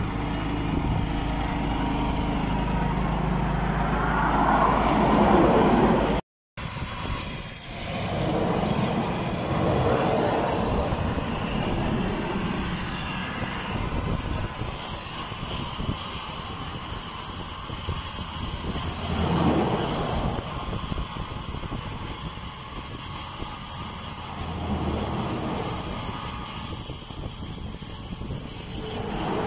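Highway traffic passing close by, vehicles going by one after another with a swell as each one passes, the loudest about five seconds in. The sound drops out briefly about six seconds in.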